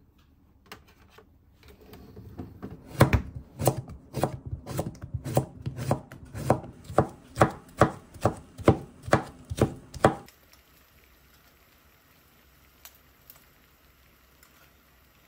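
Kitchen knife slicing cucumber on a wooden cutting board: a steady run of chops, about two a second, that stops abruptly about two-thirds of the way through.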